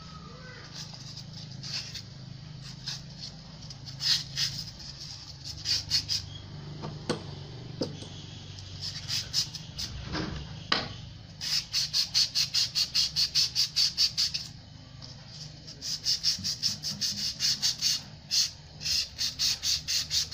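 Abrasive paper rubbed back and forth on the steel crankshaft of an air compressor pump to clean off rust. A few scattered strokes give way to two runs of quick, even strokes, about four a second, in the second half.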